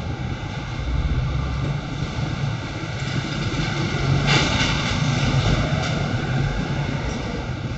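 Workshop machinery running with a steady drone, most likely the CNC router and its dust extraction; a brief louder rush of hiss about four seconds in.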